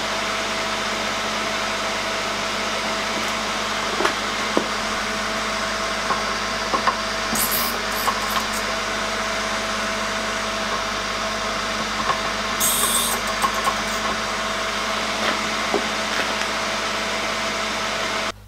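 MR-13A drill bit grinder's motor running with a steady hum, with light clicks and two short bursts of high-pitched grinding hiss, about seven seconds in and again about twelve seconds in, as the drill point is ground on the wheel. The motor cuts off suddenly just before the end.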